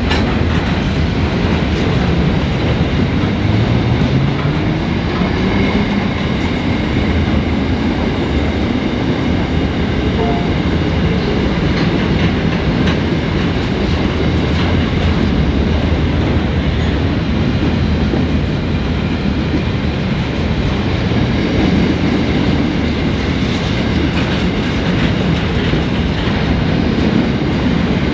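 Empty flat wagons of a freight train rolling past: a steady, unbroken noise of steel wheels running on the rails.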